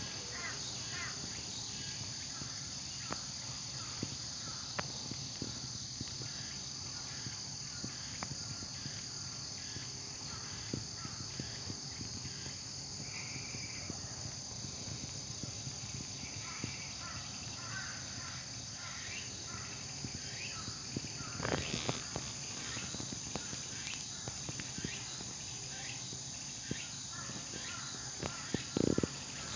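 A steady, high insect chorus buzzing without a break, with faint chirps and small clicks; a few brief louder knocks come in the last third.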